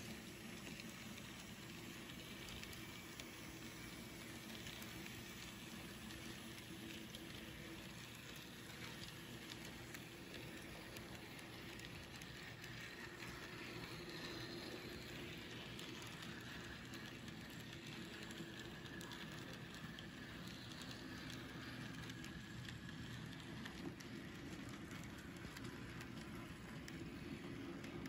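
HOn30 narrow-gauge model train running along the track, hauled by three small locomotives: a steady, faint whirr of their electric motors with light, rapid clicking of the wheels on the rails.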